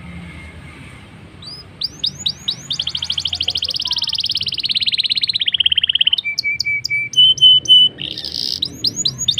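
Black-throated canary (blackthroat) singing: from about a second and a half in, long runs of very rapid, rolling trill notes, broken near the middle by a few clear whistles held at a steady pitch, then rapid trills again near the end.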